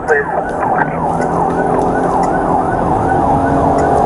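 Police car siren yelping in quick rising-and-falling sweeps, about three a second, heard from inside the cabin of the moving patrol car.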